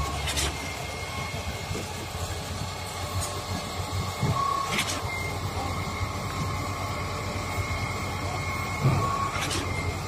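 Sany 47-metre truck-mounted concrete pump running with a steady drone and a faint whine, broken by a sharp knock about every four and a half seconds, the rhythm of the pump's pistons changing stroke as it pushes concrete.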